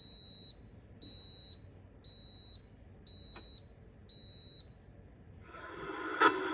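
Espresso machine beeping five times, evenly spaced at about one high beep a second. Near the end a mechanical hum starts up and grows, with one sharp click.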